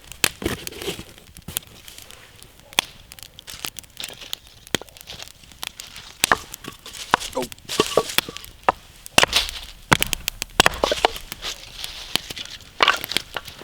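Wood campfire crackling, with frequent sharp irregular snaps and pops from burning dry kindling.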